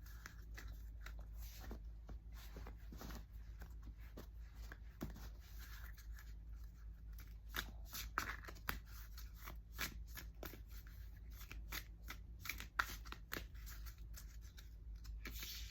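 Tarot cards being shuffled and handled: an irregular run of short card snaps and rustles, over a steady low hum.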